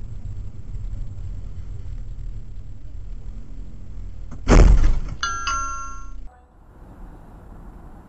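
A car's interior road rumble, then a loud head-on collision crash about four and a half seconds in, followed by about a second of electronic beeping tones that cuts off abruptly. Quieter traffic noise from another car follows.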